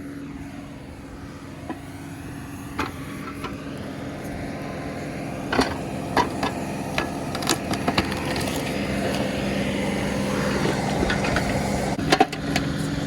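John Deere 2038R compact tractor's three-cylinder diesel running steadily as the 270B backhoe digs at a tree stump. It gets louder through the second half, and scattered sharp knocks and clunks come from the bucket working against the stump and roots.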